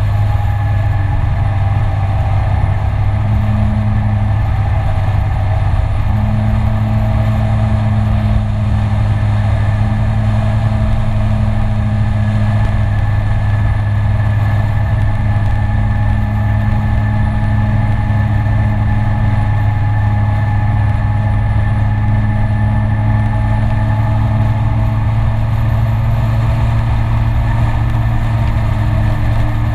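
Peugeot Citycom 300i scooter's single-cylinder engine running steadily at cruising speed, a constant drone.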